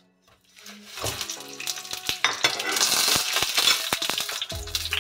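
Bananas dropped into a pan of hot melted sugar and oil start sizzling loudly about a second in. Knocks and scrapes of a wooden spatula turning them against the pan run through the sizzle.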